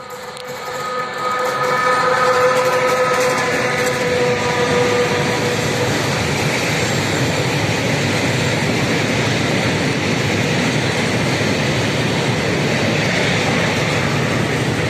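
ÖBB Railjet passenger coaches passing close by with a loud, steady rush of rolling noise that builds over the first two seconds. Its Siemens Taurus electric locomotive passes last, at the rear. A train horn sounds with several steady tones over the first four seconds or so.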